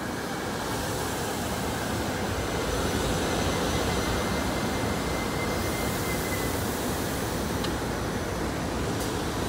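SEPTA Silverliner IV electric multiple-unit commuter train rolling past close by: a steady rumble of wheels on rail that grows louder over the first few seconds, then holds. A thin, high, steady whine fades out about two-thirds of the way through.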